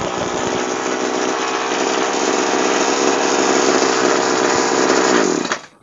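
Two-stroke engine of a Tasco TF-820 Pro knapsack power sprayer running steadily, cutting off near the end.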